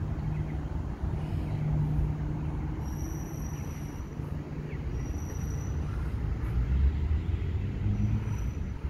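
Steady low rumble of traffic and car engines around a parking lot, with a faint high thin tone heard three times, each lasting about a second or less.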